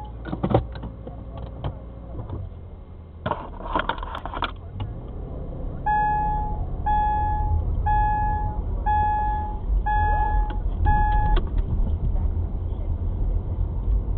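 A car driving, heard from inside the cabin: a low engine and road rumble that grows louder about halfway through, with scattered clicks and rattles in the first few seconds. In the middle, six electronic beeps sound about a second apart, then stop.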